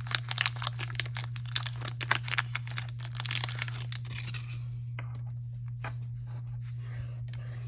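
Foil Pokémon booster pack being torn open and crinkled: dense crackling for about four and a half seconds, then only a few scattered crinkles. A steady low hum runs underneath.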